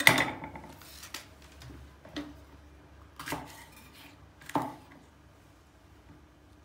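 Chef's knife cutting green peppers on an end-grain wooden cutting board: a sharp knock of the blade on the wood, then about four lighter chops spaced roughly a second apart.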